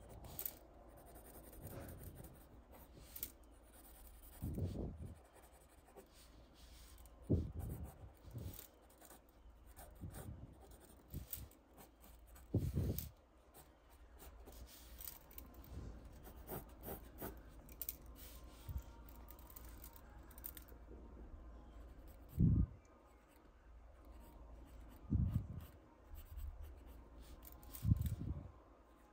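Pencil scratching on paper in short sketching strokes, with a few brief dull thumps scattered through.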